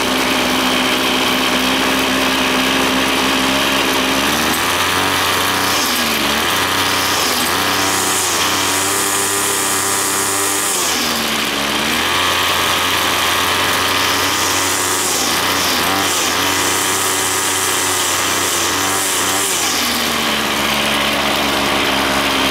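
Ryobi full-crank two-stroke string trimmer engine idling, then revved up and down repeatedly with the throttle trigger. It holds a high, rising whine for a few seconds at a time, twice, before settling back to idle near the end. It revs very fast even at part throttle, which the owner takes to be over-revving.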